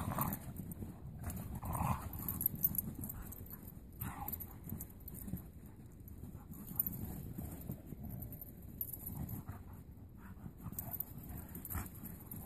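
Two dogs play-wrestling in snow: a few short play noises from the dogs in the first few seconds and a few fainter ones later, over scuffling in the snow.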